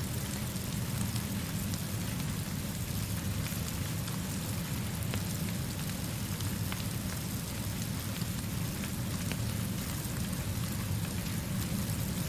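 Steady rainfall with scattered sharp drop ticks over a steady low rumble.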